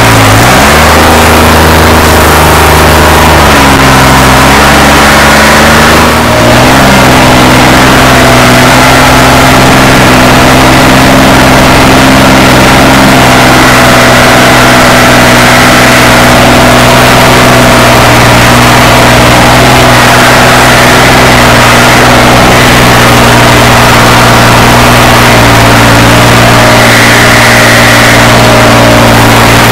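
The three-cylinder diesel engine of a New Holland 3630 tractor, modified with a tuned fuel pump and a turbo, running loud under way. Its speed shifts up and down a few times in the first several seconds, then holds steady.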